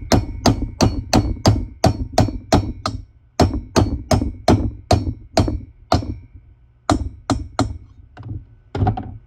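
A hammer taps a valve guide down into its bore in a cylinder head. The strikes come about three a second in runs, with short breaks, and each has a slight metallic ring. The last few taps are lighter.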